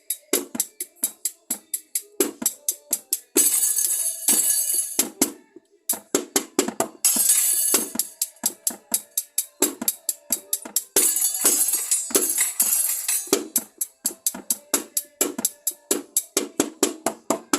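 Drum kit played along with a recorded song: a steady, quick pattern of sharp strokes, about four a second, with long cymbal crashes about three and a half, seven and eleven seconds in and a brief break just before the six-second mark.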